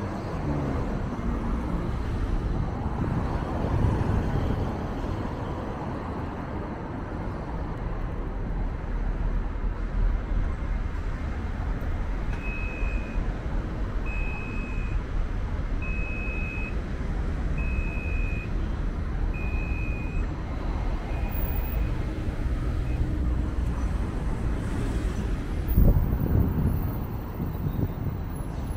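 Steady city street traffic, a low rumble of passing vehicles. Partway through, six short high beeps sound about two seconds apart, and a louder low rumble swells briefly near the end.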